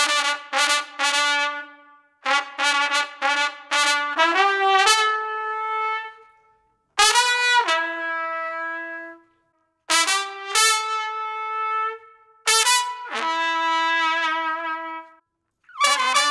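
Unaccompanied trumpet playing a melody: a run of quick tongued notes, then phrases of long held notes separated by short breaths.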